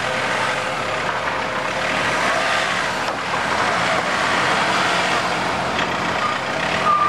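Off-road vehicle running steadily, a continuous mechanical noise with no sharp knocks.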